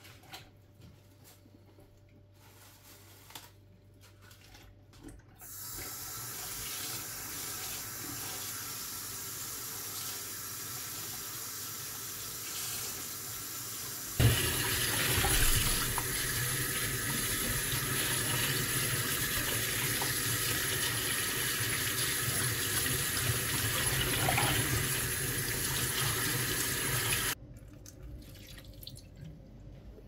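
A kitchen tap runs into a stainless steel sink, pouring over lettuce leaves in a salad spinner basket as they are rinsed by hand. After a few quiet seconds of light handling clicks, the water starts about five seconds in, grows louder around the middle, and stops suddenly near the end.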